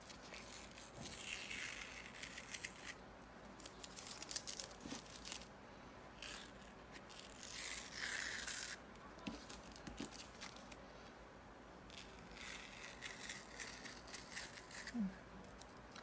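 Masking tape being peeled off the edges of drawing paper: a faint ripping hiss in several long pulls, with short pauses between them.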